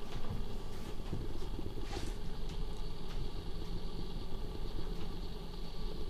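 Steady low rumble, like an engine running, with a few faint scattered ticks over it.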